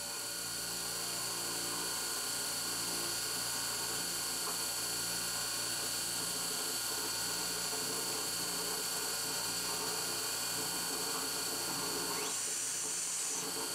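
CNC milling machine's spindle driving a 3-flute cobalt end mill through a metal block: a steady high cutting whine with several held tones over the hiss of an air blast clearing chips. The hiss grows briefly louder about twelve seconds in.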